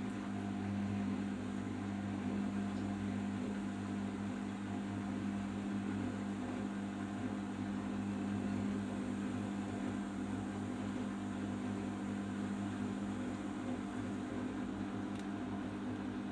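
Arçelik 5083 washing machine running steadily, a constant low hum without pauses or changes.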